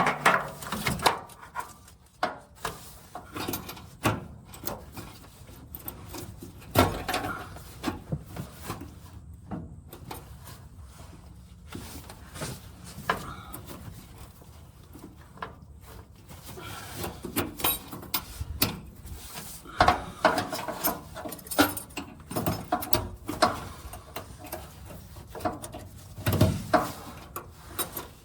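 Irregular clunks, clicks and scrapes of hand tools and metal parts being handled, with no steady engine or machine running.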